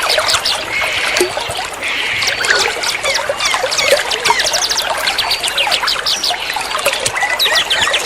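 Dense chorus of many small songbirds chirping and trilling in fast runs of repeated notes, over a steady trickle of running water: a bird-therapy recording played to prompt caged birds to sing.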